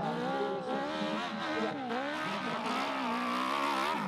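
Dirt bike engine revving hard on a steep hill climb, its pitch rising and dipping again and again, then climbing steadily over the last couple of seconds.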